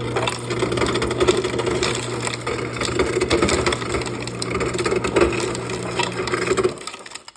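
Whirlpool refrigerator's ice dispenser running: the auger motor hums steadily while the crusher grinds ice and crushed ice rattles out, stopping about a second before the end. It is crushing even with cubed selected, a fault the owner traces to a broken solenoid that fails to lift the crusher door.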